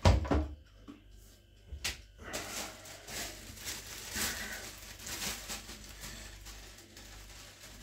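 A couple of short knocks, one at the start and one about two seconds in, then a thin clear plastic bag rustling and crinkling as it is handled.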